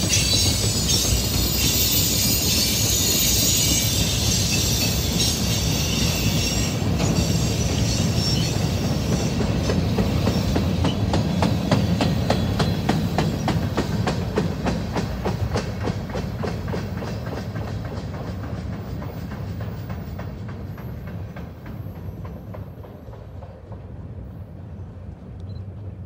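Freight train cars rolling past, their wheels clicking steadily over the rail joints, with a high-pitched wheel squeal in the first few seconds. The sound fades gradually as the end of the train moves away.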